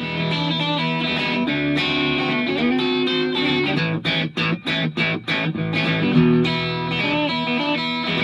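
Guitar music playing chords, with a run of about six short, clipped chords separated by brief gaps about halfway through.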